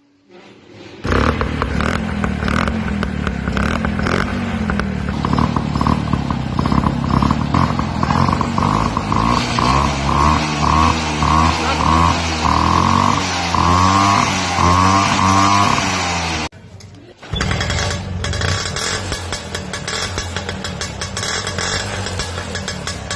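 Lambretta scooter's two-stroke single-cylinder engine running through a nickel-chrome plated silencer: it starts about a second in and is revved up and down again and again. After a brief break about two-thirds through it runs steadily at a lower speed.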